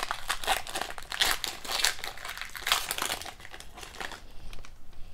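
Foil wrapper of a 2022-23 SP Authentic hockey card pack crinkling as it is torn open and crumpled by hand: rapid crackling that dies down after about four seconds.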